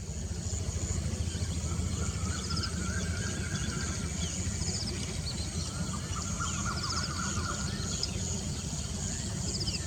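Outdoor field ambience: a steady low rumble with small birds chirping and giving short trills high up, scattered through.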